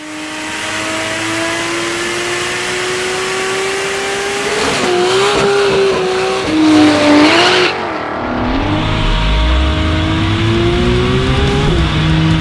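Turbocharged Nissan RB30 straight-six of a drag-race Holden VL Commodore at high revs, its pitch climbing steadily for about five seconds, then wavering and getting louder. The sound changes abruptly about eight seconds in to a deeper engine note that climbs again.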